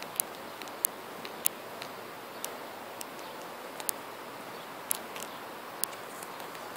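Red squirrel gnawing a spruce cone: about a dozen sharp, crisp clicks at irregular spacing as its teeth snap and tear off the cone scales.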